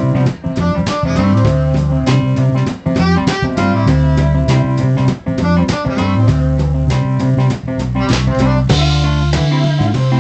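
Small live band playing: electric guitar over a strong bass line, with keyboard and a drum kit keeping a steady beat.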